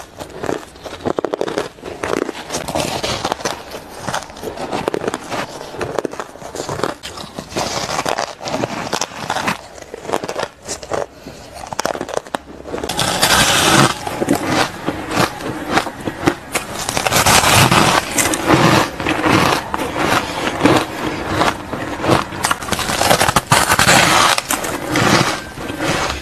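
Shaved ice being bitten and chewed: rapid crisp crunching and cracking of packed ice crystals. It gets louder and denser about halfway through, as bites are taken from a large frozen block of shaved ice.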